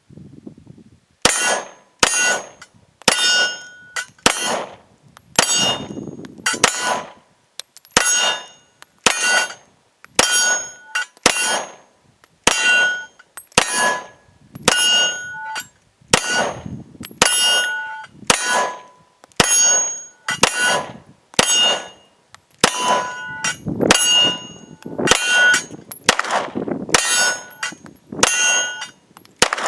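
Glock 17 9mm pistol fired in a long steady string, roughly one to two shots a second, each shot followed by the ring of a struck steel target.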